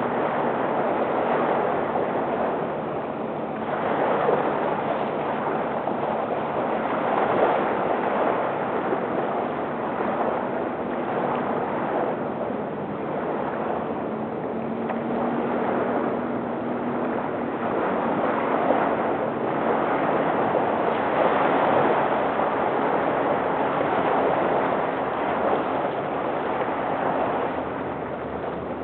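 Small waves lapping on a lakeshore in the wind: a steady rushing that swells and eases every few seconds.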